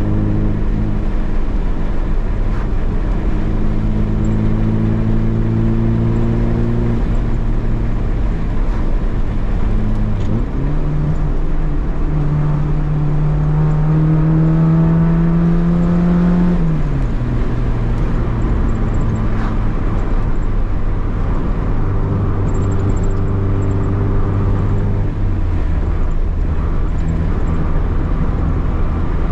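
A vehicle's engine running under way on the road, with steady road noise. About ten seconds in the revs rise and keep climbing slowly for several seconds, then fall back, and they drop again near the end.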